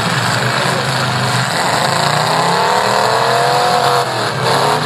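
Demolition derby car engines running hard under a steady wash of noise. One engine revs up, rising in pitch from about a second and a half in, then drops back down near the four-second mark.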